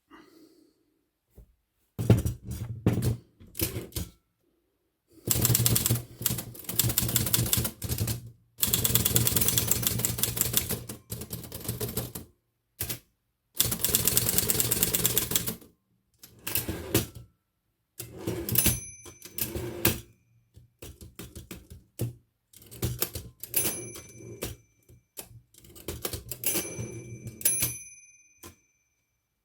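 Olivetti Lettera 22 portable typewriter's mechanism clattering in rapid runs of clicks, several bursts of one to three seconds with short pauses between. A few short high ringing notes sound in the second half.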